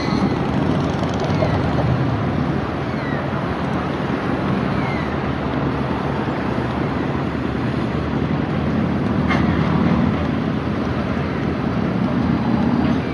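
Steady outdoor rumble of wind on the microphone and road traffic beside a light-rail tram stop, with a few faint short chirps over it.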